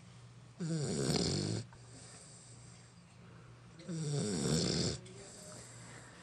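An 11-week-old bullmastiff puppy snoring in her sleep: two loud snores about a second long each, roughly three seconds apart.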